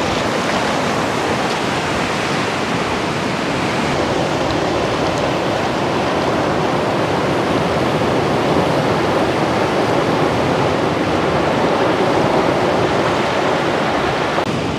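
Steady rushing noise of wind and water, even throughout with no separate sounds standing out.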